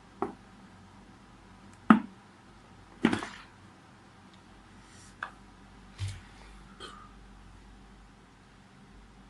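Six short, sharp throat sounds, the loudest about two seconds in and the third a little longer, from a girl gassy after drinking about two litres of Sprite: small burps or hiccups brought on by the carbonation.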